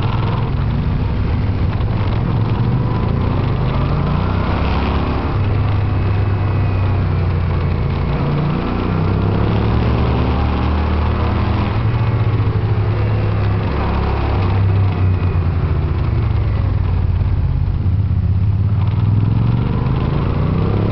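Yamaha TDM900's 900 cc parallel-twin engine heard from on board at track pace. The revs climb and drop several times as the rider accelerates out of bends and eases off into them.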